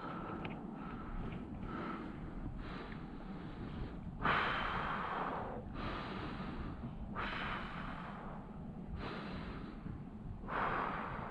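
A person breathing deeply close to the microphone, slow breaths about every second and a half that grow louder about four seconds in, over steady low wind noise.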